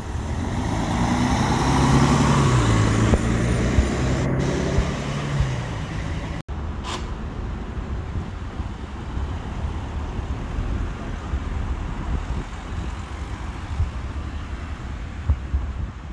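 A motor vehicle passes close by, its engine hum swelling and fading over the first few seconds, followed by steady street traffic noise.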